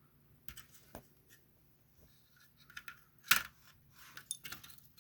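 Small metal and plastic toy parts clicking and clinking as a toy is worked apart by hand, in scattered sharp knocks that come thicker in the second half, with one louder clink about two-thirds of the way in.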